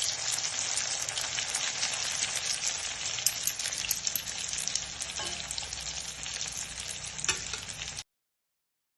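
Oil sizzling and crackling steadily as banana blossom omelette patties fry in a pan, with a few louder pops. The sound cuts off suddenly about eight seconds in.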